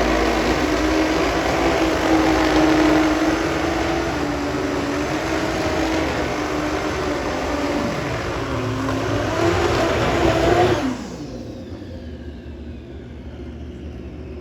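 Drag-racing motorcycle engine at full throttle on a run down the strip, its note holding high and dipping then climbing again. The sound stops abruptly about eleven seconds in, leaving a much quieter background.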